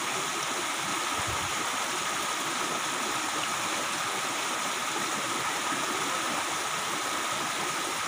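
Small rocky stream running steadily, its low flow splashing over stones into a pool.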